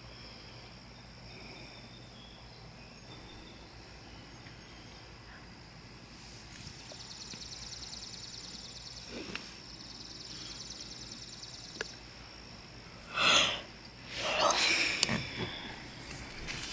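Quiet early-morning outdoor ambience heard from inside a tent: a faint steady hiss with a thin high whine. A high, rapid trill runs for about five seconds midway, and two short louder sounds come near the end.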